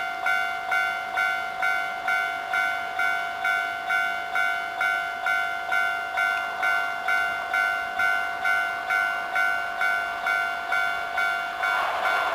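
Japanese railway level-crossing alarm ringing its electronic bell tone in even strikes, about two a second. Near the end, the running noise of the approaching Hankyu 9300-series train starts to rise under the bell.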